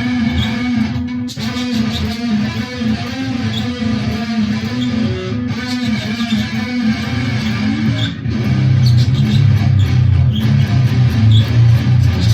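Electric guitar tuned down to drop A, playing a heavy riff, shifting about eight seconds in to lower, louder notes.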